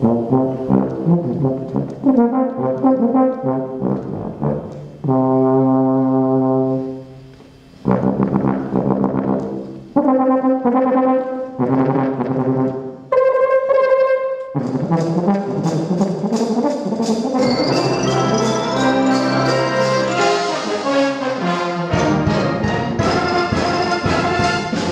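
Euphonium solo with brass band: separate phrases and held notes, including one long low note, with short pauses between them, then fuller ensemble playing from about fifteen seconds in, building to the closing bars.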